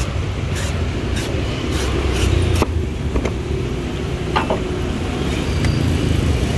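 Steady low rumble of street traffic, with irregular sharp clicks of a large knife cutting into the husk of a young green coconut on a wooden board. The clicks come every half second or so at first and thin out after about three seconds.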